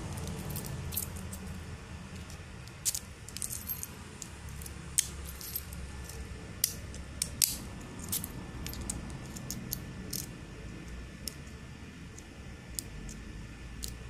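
Small keys on a ring clinking and jingling against a transparent practice padlock as it is handled and turned in the hand: scattered, irregular light metallic clicks.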